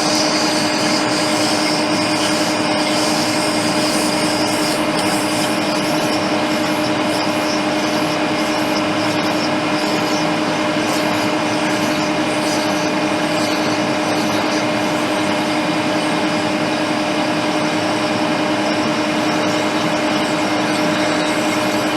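Steady whir of an electric blower on a soldering bench, with an even hiss and a constant low hum, holding level without a break.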